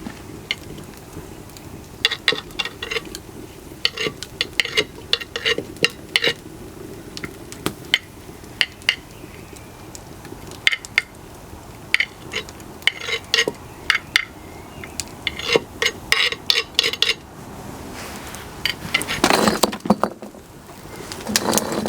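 A spoon knocking and clinking against a clay cooking pot as onions are stirred in hot oil, in quick irregular clusters of sharp knocks, over a faint steady hiss. A longer, louder scraping sound comes near the end.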